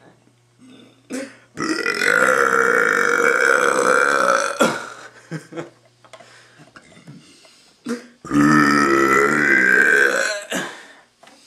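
A young man belching loudly twice, long drawn-out burps of about three seconds and about two seconds, a few seconds apart.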